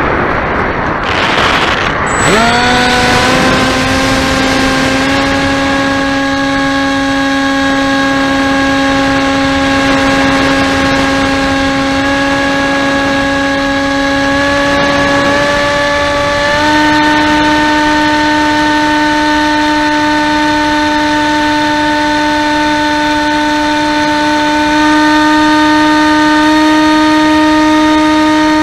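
Wind rushing over the microphone, then about two seconds in a model aircraft's motor and propeller spin up and run with a steady whine, which steps up in pitch a little over halfway through.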